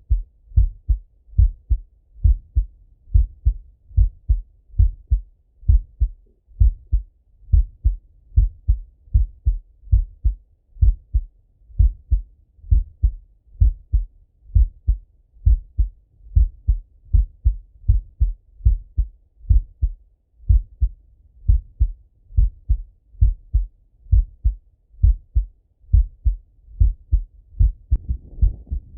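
A man's heartbeat heard through a stethoscope on the chest: a steady, even lub-dub rhythm, each beat a pair of short low thumps.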